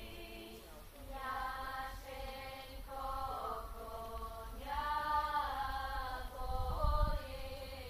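Women's vocal ensemble singing a cappella in close harmony: held chords in phrases of a second or two, the voices bending and sliding between pitches.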